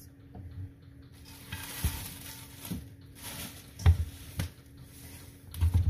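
A few soft knocks and thumps of things being handled at a kitchen counter, the loudest about four seconds in and again near the end, over a steady hiss and a faint low hum.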